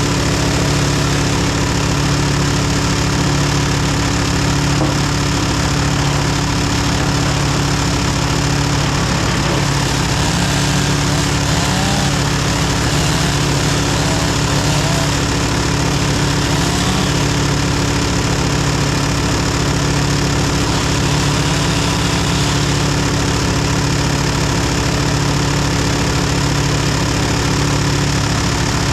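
Gasoline engine of a wood chipper running steadily at a constant speed.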